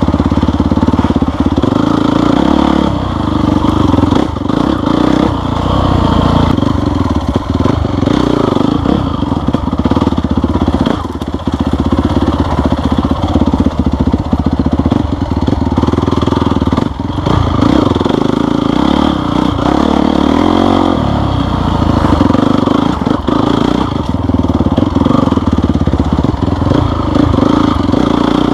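Off-road vehicle engine running steadily under way on a rough trail, with frequent rattles and knocks throughout.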